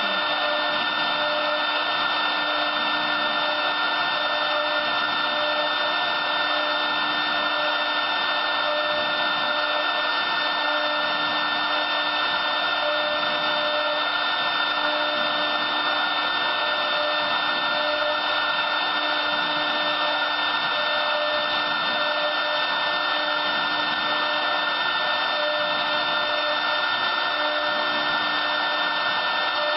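Wood CNC router spindle running steadily while the machine carves wood on its rotary axis. It is a constant machine noise with a high, steady whine.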